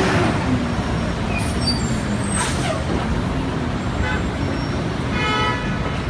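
City street traffic: the steady rumble of heavy vehicles, with short air-brake hisses about a second and a half in and again a second later.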